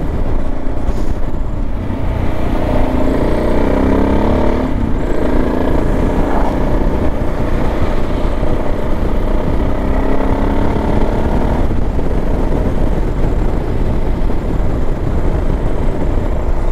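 Suzuki DR650's single-cylinder four-stroke engine running while the bike is ridden, its note rising and falling, over a steady low rush. The engine note breaks off briefly about five and twelve seconds in.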